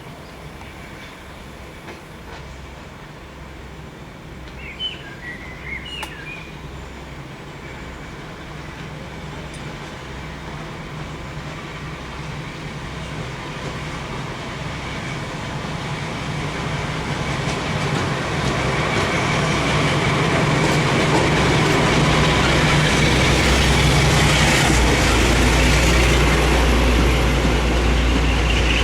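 A heritage railway train approaching on the line, its low running sound growing steadily louder over about twenty seconds until it is close and loud.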